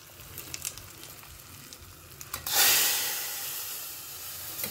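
Hot coconut-oil tempering of mustard seeds and dal crackling faintly in a small iron pan. About two and a half seconds in, a sudden loud sizzling hiss as the tempering is poured into the cooked greens and dal, fading over the next two seconds.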